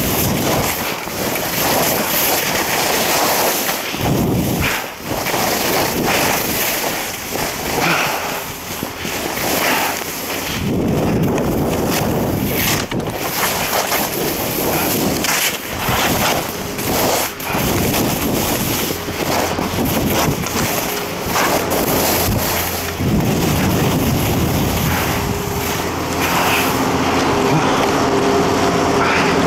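Wind buffeting the microphone during a fast downhill ski run, with the hiss and scrape of skis carving over packed snow. Near the end a steady hum of several tones sets in beneath it.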